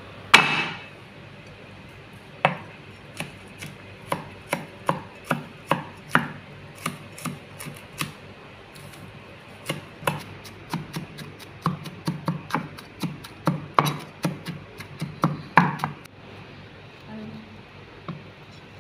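Cleaver chopping garlic on a wooden cutting board: a heavy knock about half a second in, then a long run of sharp, irregular knocks of the blade on the board, at times several a second, stopping a couple of seconds before the end.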